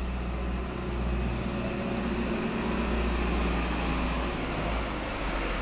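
Feed-crushing machine with its aspiration fan running steadily: a constant low hum under a broad rushing noise.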